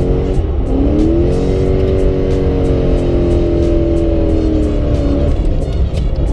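Toyota 1UZ V8 in a Nissan S13 revving hard from inside the cabin: the revs jump about a second in as the clutch is kicked, hold high with a slow sag while the car drifts, then drop off about five seconds in.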